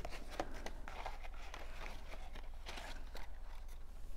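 Cardstock pieces being handled and laid in place on a table: scattered light rustles and small taps of paper.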